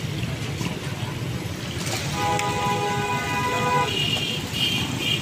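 Busy street noise with a low steady rumble, and a vehicle horn held for about two seconds midway, followed by three short high beeps.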